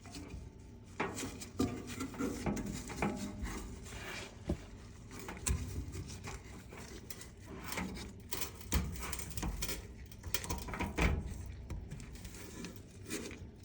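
Irregular scuffs, clicks and soft knocks of hands fitting a new rubber drive belt around a Whirlpool dryer drum.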